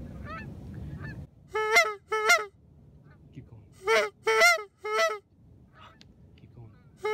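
Goose call blown by a hunter: seven loud, short honks in groups of two, three and two, meant to draw a passing flock of geese in. A low rumbling noise sits under the first second.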